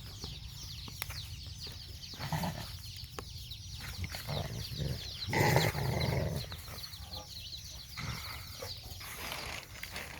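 Small animals calling: a steady stream of quick, high-pitched falling chirps, with one louder call about five and a half seconds in.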